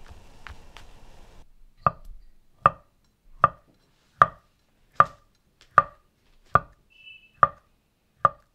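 Chef's knife slicing an avocado and striking a wooden cutting board with each cut. About two seconds in, nine sharp, even knocks begin, a little under one a second.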